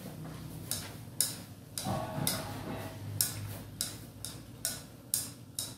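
A spatula scraping and knocking against a pan while quail eggs are stir-fried in a reducing fish-sauce glaze: a run of sharp, uneven strokes, about two a second.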